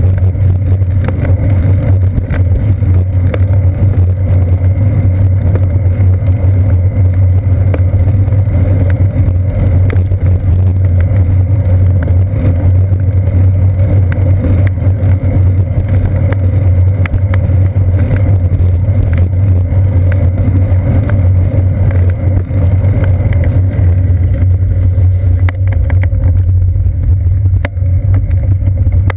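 Loud, steady low rumble of wind and road vibration picked up by a seat-post-mounted GoPro Hero 2 in its housing as the bicycle rolls along, with a few faint ticks.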